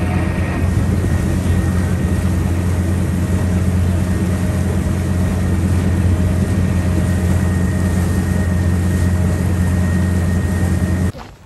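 Tour boat's engine running steadily on the water, a loud low hum with a faint steady whine above it; it cuts off abruptly near the end.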